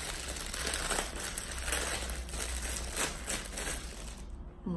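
Thin clear plastic bag crinkling and rustling as a plastic sponge holder is pulled out of it, the rustling easing off about four seconds in.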